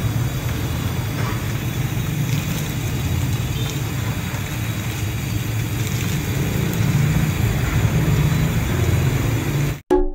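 Street traffic: a steady low rumble of vehicle engines with a noise haze above it, cutting off abruptly near the end.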